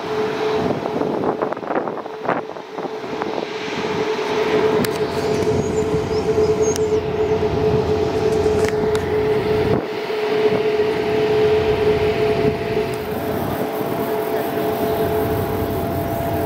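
Airbus A330-900's Rolls-Royce Trent 7000 turbofans at taxi power: a steady whine over a low rumble.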